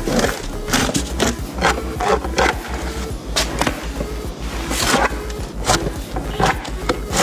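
Lever-arm guillotine chopper cutting through a crisp-skinned roast goat: repeated irregular chops and crunches of the blade through skin and meat onto its metal base. Background music with a steady bass beat underneath.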